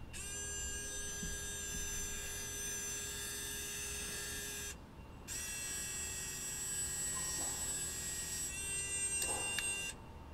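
Traxxas Pro Scale winch on an RC crawler, its small electric motor whining steadily as it pays out line for about four and a half seconds. It stops for half a second, then runs again for about as long, reeling the line back in, and its pitch shifts near the end.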